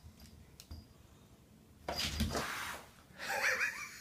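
Small dog and cat tussling on a tile floor: a few faint paw taps, a short noisy huff about two seconds in, then a brief wavering high-pitched squeak.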